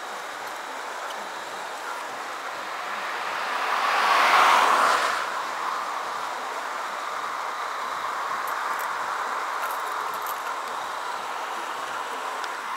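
Steady traffic noise, with one vehicle passing by that swells and fades about four seconds in.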